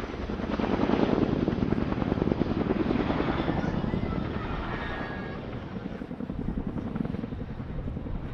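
Boeing Chinook HC.6 tandem-rotor helicopter in flight, its rotors making a fast, pulsing blade slap. It is loudest from about one to three seconds in, then eases off.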